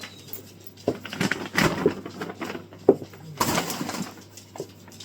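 Four-week-old kittens moving about in their cage: irregular rustling and light knocks, with one sharper knock near the middle.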